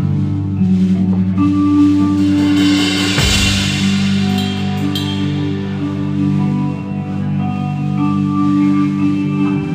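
Live band playing a slow song: held chords over a bass line, with drums and a cymbal crash about three seconds in.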